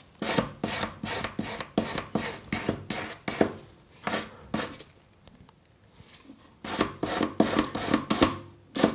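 A sanding stick, abrasive paper wrapped round a stick, rubbed back and forth over a pendant's freshly soldered top loop to smooth off left-over flux. It makes quick scraping strokes, about three a second, stops for a couple of seconds midway, then starts again.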